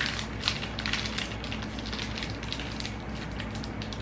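Food packaging crinkling and crackling as it is handled, with sharp crackles clustered in the first second and a half and sparser after, over a low steady hum.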